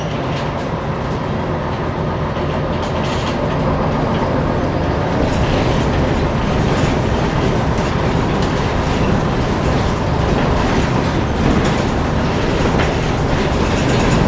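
Inside a diesel bus while it is driving: the diesel engine drones low and steadily under road rumble, with frequent small rattles from the cabin. The sound grows slightly louder over the stretch.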